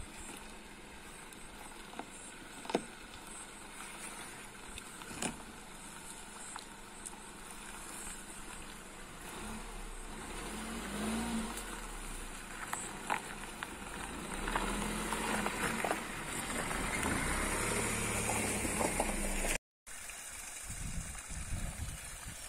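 Tata Nexon SUV driving slowly over a rough, stony dirt track, its engine and tyre noise growing louder as it approaches, with scattered sharp clicks. The sound cuts out for a moment near the end.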